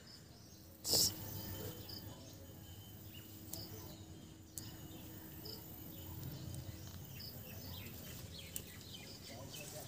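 Faint outdoor garden background with short, high chirps scattered through it, and a brief knock about a second in.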